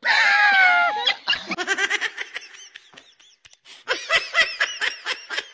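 A man's loud, drawn-out yell lasting about a second and dropping in pitch at the end, then fast, rhythmic laughter that fades, pauses briefly past the middle, and starts up again.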